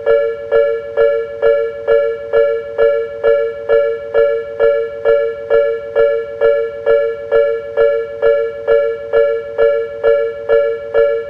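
Japanese railway level-crossing warning bell, the electronic 'kan-kan' alarm, ringing steadily at about two and a half dings a second: the signal that a train is approaching and the crossing is closed.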